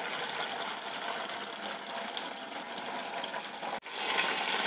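Coconut milk cooking down in a nonstick pan on a low flame, bubbling and sizzling steadily as the coconut oil separates out. The sound drops out for an instant near the end, then comes back slightly louder.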